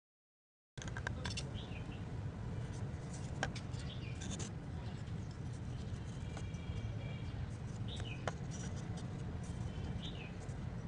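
Outdoor background: a steady low rumble with small birds chirping now and then, and a few light clicks as a metal tube and PVC pipe are handled and fitted together. The sound cuts in after a brief dropout at the start.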